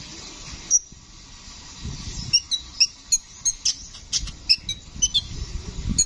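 Copper-throated sunbird (kolibri ninja) singing: a rapid run of short, sharp, high chirps from about two seconds in, after one sharp click just under a second in.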